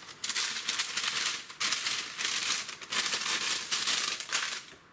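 Parchment baking paper crinkling in repeated bursts as it is handled and folded into an envelope around dried zucchini slices, stopping just before the end.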